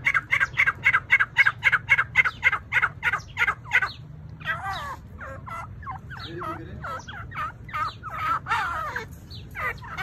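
Grey francolins calling. For the first four seconds there is a fast, even run of sharp repeated notes, about five a second. Then come looser, wavering calls that slide down in pitch.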